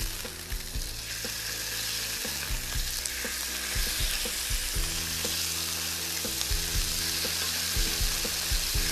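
Beef steaks searing in olive oil in very hot grill pans over high heat: a steady sizzle.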